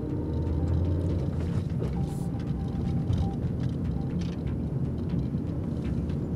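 Car engine and road noise heard from inside the cabin while driving, a steady low rumble.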